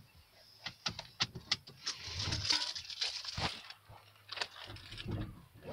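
Handling noise: a run of sharp clicks and taps with a stretch of rustling around two to three seconds in.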